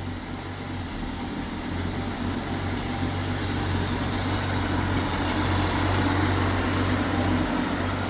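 A 1940 Plymouth's flathead straight-six engine running steadily at idle, newly brought back to running, getting slightly louder over the first few seconds.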